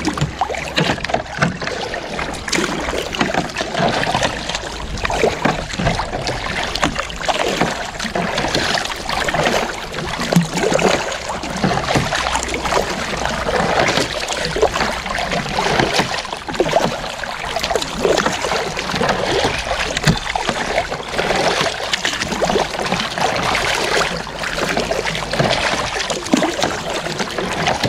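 Double-bladed kayak paddle strokes dipping into the water, with steady splashing and trickling along the hull.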